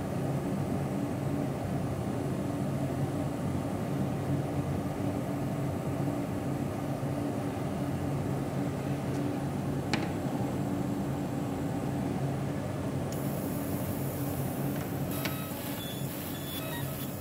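Steady hum of a fiber laser marking machine running, as from its cooling fans, with one sharp click about ten seconds in.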